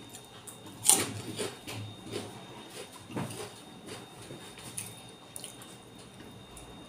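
Close-miked chewing and mouth sounds from eating vegetables in peanut sauce, with a sharp smack about a second in and another about three seconds in.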